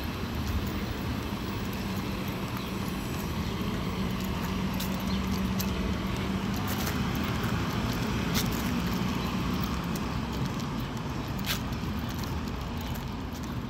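New Flyer XDE40 diesel-electric hybrid bus driving, a steady drone with a low hum that wavers a little in pitch. A few clicks or rattles sound through it.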